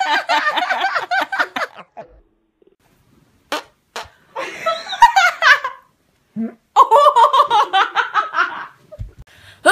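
Fart sounds mixed with girls' laughter, in several short bursts with brief silent gaps between them.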